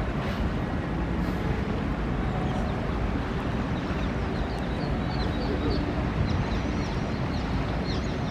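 Steady low rumble of city traffic and the swollen river, with short high chirps of small birds scattered throughout.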